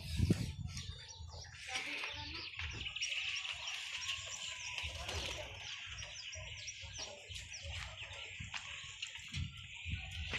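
Birds chirping in a dense, steady chorus that starts about two seconds in, over a low rumble of wind and handling on the microphone.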